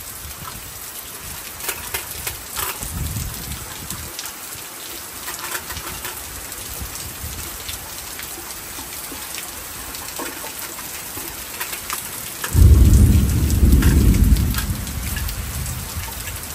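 Light rain falling steadily, individual drops ticking. About twelve seconds in, a rumble of thunder swells and fades over about three seconds.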